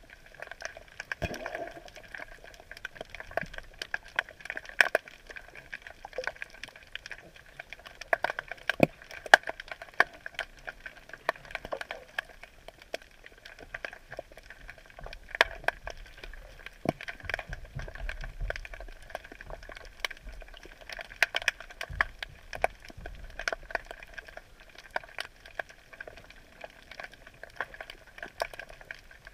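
Underwater crackling heard through the camera's housing: a dense, irregular stream of sharp clicks and pops. A faint low rumble comes in twice around the middle.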